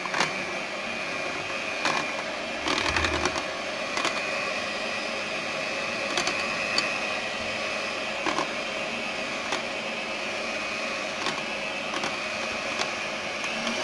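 Electric hand mixer running steadily on low speed, its beaters whisking beaten eggs and milk in a glass bowl, with a few sharp clicks here and there, a cluster of them about three seconds in.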